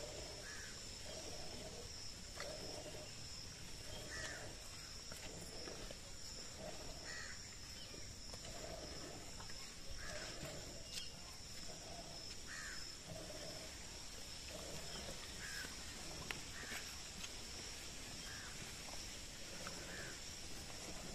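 Milk squirting into a steel pail in faint, rhythmic strokes as a cow is milked by hand, about one squirt a second, the strokes alternating between a lower and a higher hiss. A steady high insect drone runs underneath.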